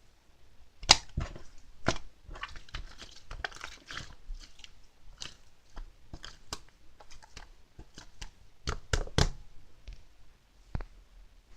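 Mixed slime being worked by hand, giving irregular wet clicks and pops as trapped air bursts, with a soft crackle in between.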